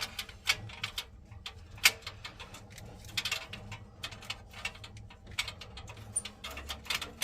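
Irregular small clicks and taps of screws, a screwdriver and metal boiler parts being handled and fitted together, with one sharper knock a little under two seconds in.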